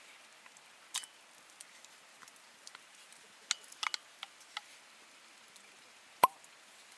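Wood campfire crackling: sparse small pops and snaps, then one sharp, much louder crack about six seconds in.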